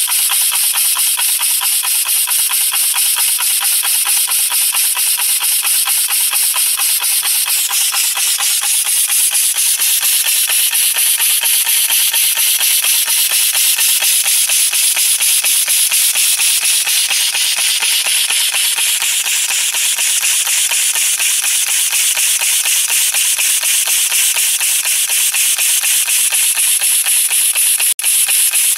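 Air compressor converted into a single-cylinder piston engine, running on compressed air. Air hisses from its valves in rapid, even puffs with each stroke.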